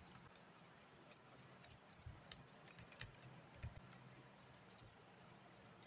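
Near silence with faint scattered clicks, about one a second, from a screwdriver working the terminal screws of a three-phase contactor as cables are fastened in.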